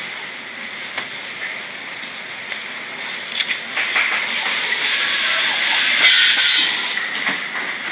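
Handling noise from a recliner being tilted forward and worked on: a few sharp clicks, then a louder rustle of upholstery and frame, over a steady hiss.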